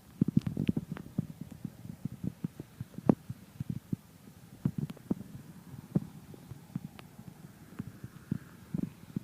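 Raindrops striking a surface close to the microphone: an irregular scatter of dull taps, several a second, with a few sharper clicks.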